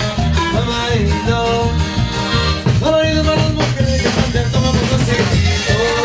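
A band playing Latin dance music, with held melody notes over a steady, evenly pulsing bass beat.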